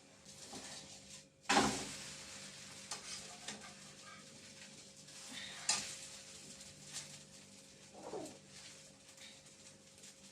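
Pancake batter frying in an oiled pan with a light sizzle, plus a few scrapes and knocks of a utensil against the pan. The loudest sound comes about a second and a half in, and a sharper knock comes near the middle.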